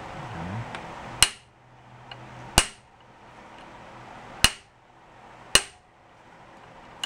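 Ball-peen hammer striking a hand impact driver four times, sharp metallic blows a second or two apart, to drive and turn a stuck Phillips screw out of a 1971 Honda CB350's engine side cover.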